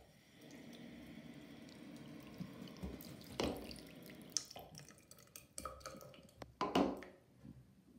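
Water running from a bathroom sink tap for about four seconds, then several sharp knocks and bumps of handling, the loudest near the end.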